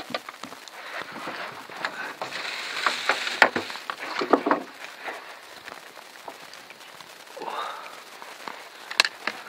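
Irregular knocks, taps and rustling as a landed bass is handled on a plastic measuring board and in a landing net inside an aluminium boat, busiest between about two and five seconds in, with a sharp click near the end.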